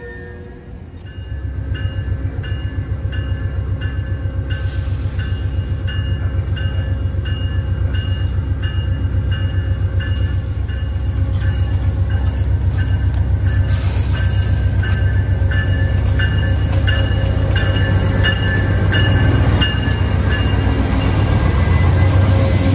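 Amtrak GE P42 diesel locomotive on the Vermonter approaching and passing close, its engine rumbling and growing louder as it nears. Its bell rings steadily, a little under two strokes a second, through most of the pass.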